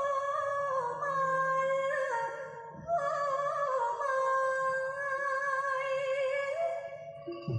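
A woman singing long, drawn-out notes with vibrato and slow slides between pitches, in the style of Thai likay folk opera.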